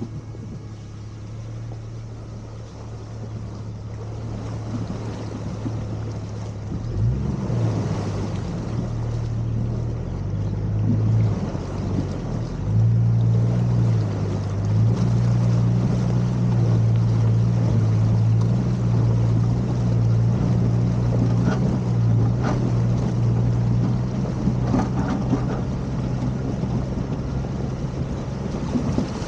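1999 Jeep Cherokee XJ engine running as the Jeep drives, with road and wind noise; the engine note rises and gets louder about seven seconds in and again a few seconds later, then holds steady.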